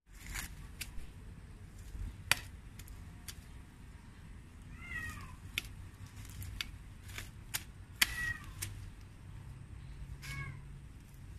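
A cat meowing: a short run of calls about five seconds in and another near the end. Sharp snapping clicks from hands working in dry grass and twigs come in between, the loudest about two seconds in and about eight seconds in.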